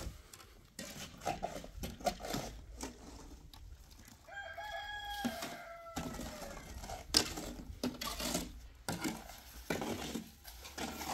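A rooster crowing once, starting about four seconds in: one long call of a bit over two seconds that falls in pitch at the end. Scattered rustles and knocks sound around it, with a sharp knock, the loudest thing, just after the crow.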